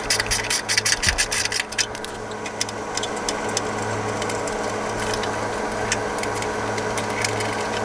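Rapid clicking from a tool working the 4Runner's frame bolts loose, for about the first two seconds, followed by a steady low mechanical hum.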